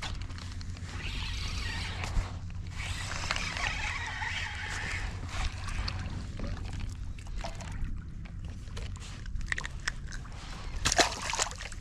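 Water sloshing and splashing against the side of a fishing kayak over a steady low rumble, with a few sharp knocks near the end.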